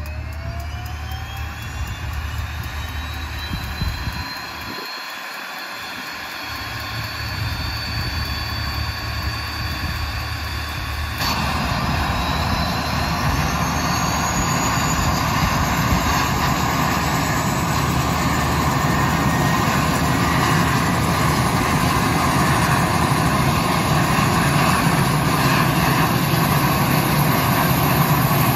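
Electric motor and propeller of a radio-control model plane running, the whine rising in pitch at the start and then holding steady. About eleven seconds in, a louder rush of noise joins it and slowly builds.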